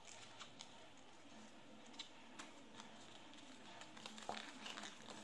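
Faint crisp ticks and rustles of coloured paper being folded and pushed into shape by hand, with a busier patch of rustling about four seconds in.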